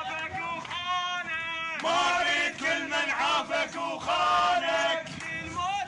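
A group of men chanting together in rhythmic, sung phrases, a protest chant. It gets louder about two seconds in.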